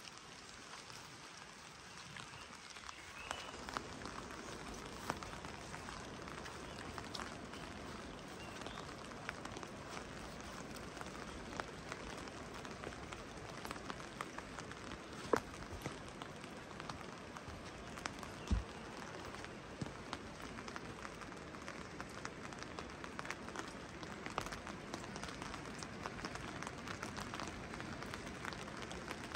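Steady rain, a continuous hiss dotted with many small drop ticks. It grows louder about three seconds in, and there is a single low thump a little past the middle.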